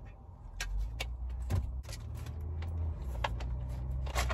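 Scattered small clicks and rustles of rolling supplies being handled on a small tray, over a steady low rumble.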